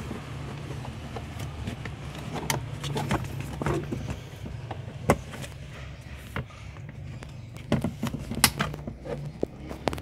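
Scattered plastic clicks and knocks as parts are handled and fitted under a car's dashboard near the brake pedal switch, a few sharp ones standing out, over a steady low hum.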